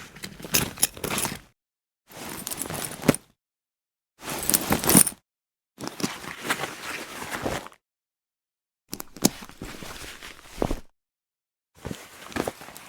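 A series of about six separate travel bag handling sounds, each a second or two of rustling and scraping with sharp clicks, cut apart by silence.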